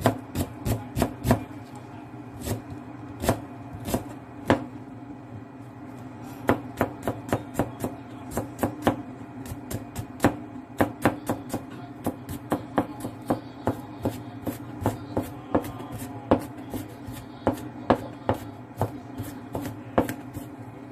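Kitchen knife mincing chopped onion on a cutting board: quick, irregular knocks of the blade against the board, a few a second, with a short pause about five seconds in. A steady low hum runs underneath.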